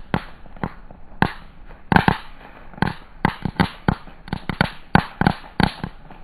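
Small fireworks strapped to a spinning thrown boomerang, crackling with a rapid, irregular string of sharp pops, a few each second.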